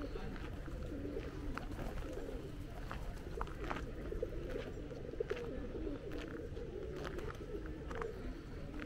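A flock of feral pigeons cooing, many soft overlapping coos that run on without a break. Scattered short clicks can be heard above them.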